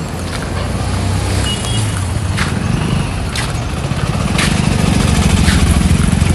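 Road traffic passing close: a heavy lorry engine's low rumble that swells about four seconds in. Sharp clacks sound roughly once a second.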